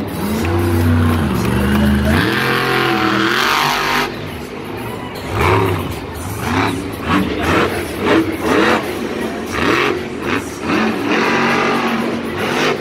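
Monster truck engine revving up and down again and again, its pitch rising and falling, with a loud low rumble in the first two seconds.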